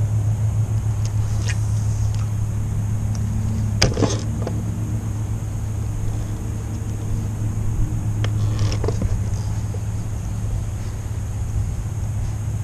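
Electric trolling motor running with a steady low hum while the boat creeps along, with a sharp knock about four seconds in.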